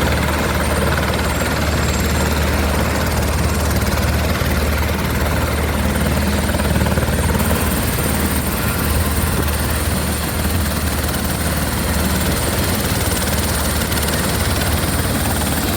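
Helicopter rotor and turbine running steadily, a loud continuous drone with a strong low hum.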